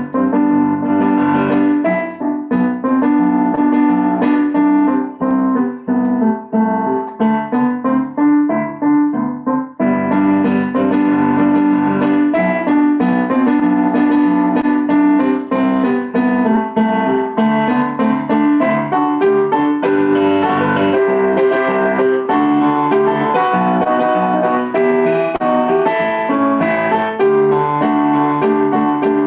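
Piano music playing a song accompaniment with no singing. About ten seconds in, the texture grows fuller.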